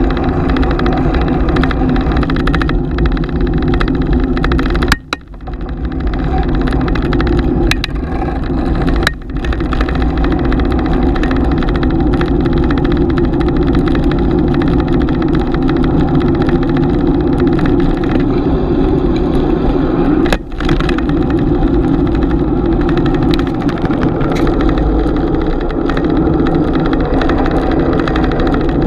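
Steady riding noise of a bicycle in motion picked up by a GoPro's microphone: wind rushing and tyres on the road. A few sharp clicks and two short dips in level come about five and twenty seconds in.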